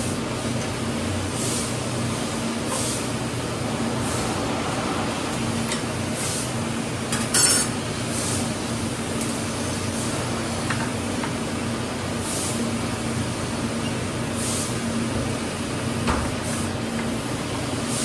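Steady low machine hum in the background, with soft scrapes and small clicks of hands working wiring inside an open sheet-metal laser source chassis. A brief metallic clatter stands out as the loudest sound, about seven and a half seconds in.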